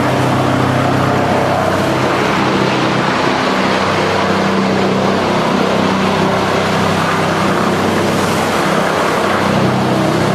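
Wood-chipping plant machinery running steadily, a motor drone with a continuous hiss, as wood chips pour off a belt conveyor onto a pile.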